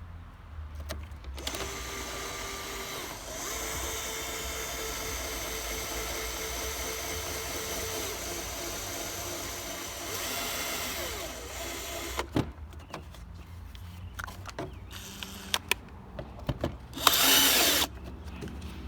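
Power drill with a step bit running for about ten seconds, cutting a hole through a plastic bumper cover, then stopping; a few light knocks follow and a short loud burst comes near the end.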